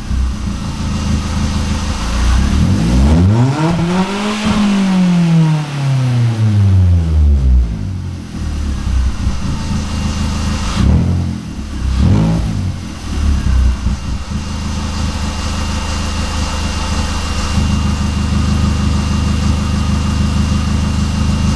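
Opel Astra 1.4's four-cylinder petrol engine heard through its exhaust, revved up once in a smooth climb and allowed to fall back, then blipped twice quickly, then settling into a steady idle.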